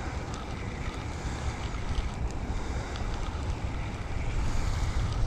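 Wind buffeting the microphone, a steady rumbling rush of noise with a few faint clicks.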